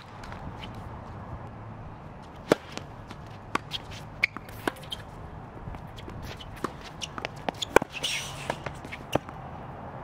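Tennis rally on an outdoor hard court: sharp, irregular pops of racket strikes and ball bounces, with a brief scuffing sound about eight seconds in.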